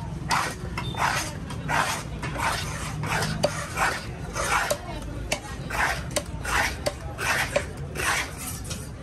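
A knife scraping across a wooden chopping block in repeated rasping strokes, a little faster than one a second.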